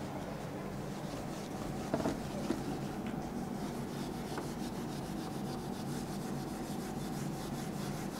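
Whiteboard eraser rubbing back and forth across a whiteboard, wiping off marker writing in quick repeated strokes.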